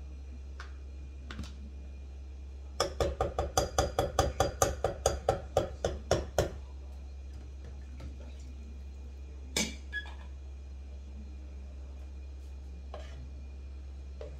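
A quick run of about twenty knocks on the rim of a soup pot, roughly five a second for nearly four seconds, each with a short ring, then a single knock a few seconds later. A steady low hum runs underneath.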